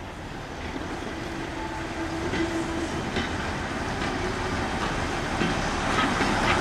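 Andrew Barclay 0-4-0 diesel shunter propelling two goods wagons toward the listener: a steady engine note growing louder, with a few clicks from the wheels over the rail joints.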